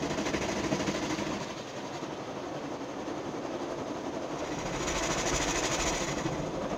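Automatic car wash machinery running, heard from inside the car: a steady mechanical rattle and rumble with water hiss, the hiss growing stronger about five seconds in.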